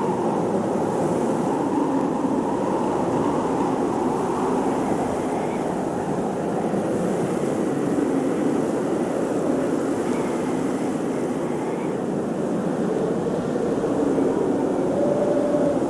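Blizzard wind blowing steadily, a dense rushing noise with faint whistling tones that waver up and down now and then.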